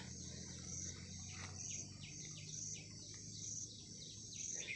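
Faint outdoor ambience: an insect chirps in high pulses about once a second, and near the middle a bird gives a quick run of short falling call notes.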